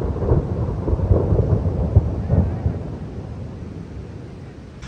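Thunder rolling low, swelling in uneven rumbles and then dying away over the last couple of seconds, with rain falling.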